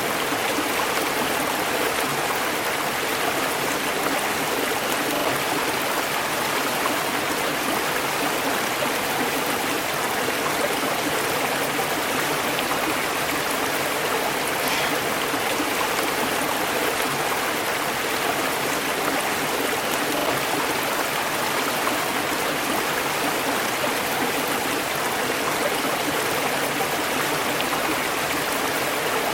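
River water flowing over rocks: a steady, even rushing and babbling that does not change.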